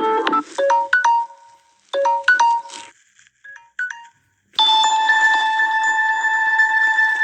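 Samsung Galaxy S7 Edge ringtones playing one after another. A piano-like tune ends at the start, then a short tune of bright single-note chimes comes in two phrases. After a brief pause, about halfway in, a long steady chord of tones is held.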